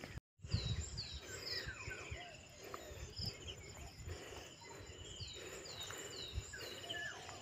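Birds calling in short, repeated downward-sweeping chirps and other whistled notes, over a faint steady high insect drone. The sound cuts out briefly near the start.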